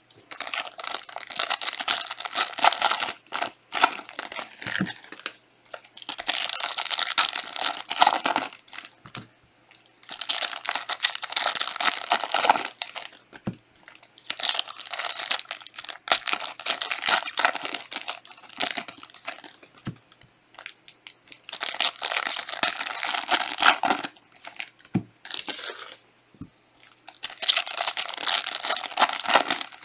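Foil trading-card pack wrappers being torn open and crinkled by hand, in repeated bouts of a couple of seconds each with short pauses between, as pack after pack is opened.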